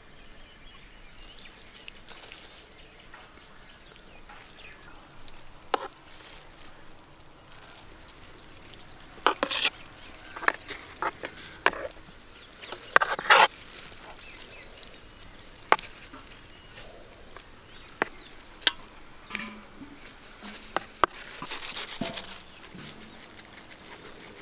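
A spoon scraping and knocking against a metal baking tray as meat sauce is spread over the lasagna layer: scattered sharp clinks, loudest in two clusters about nine and thirteen seconds in.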